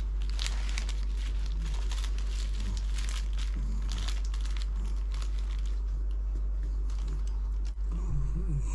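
Plastic sushi packaging being crinkled and torn open, dense crackling for the first few seconds, then sparser. A steady low hum runs underneath.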